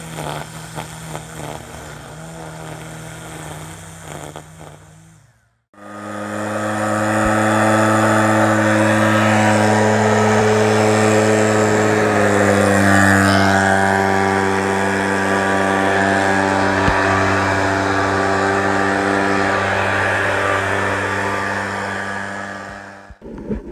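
A Ryobi 40V battery string trimmer whirs as it cuts grass. After a sudden break, a much louder small engine runs steadily, and its pitch drops slightly about halfway through.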